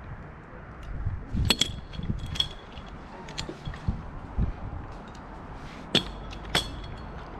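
Metal climbing hardware clinking on a tree climber's rope system: about four sharp metallic clinks that ring briefly, with dull knocks and rustling between them.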